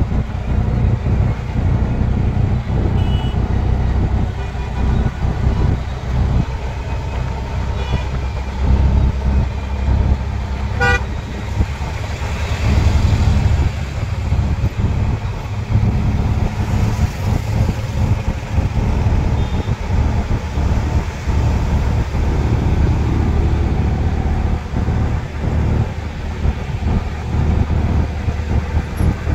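Auto-rickshaw engine running as it drives along a highway, a steady low drone with road noise. A vehicle horn toots briefly about eleven seconds in.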